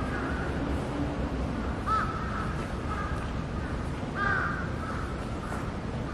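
Birds calling outdoors: a handful of short calls over a steady background hiss, the loudest about four seconds in.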